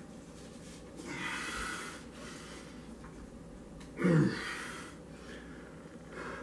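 A man straining with effort while rolling up a frying pan by hand: a forceful breath out about a second in, then a short, loud grunt falling in pitch about four seconds in, followed by heavy breathing.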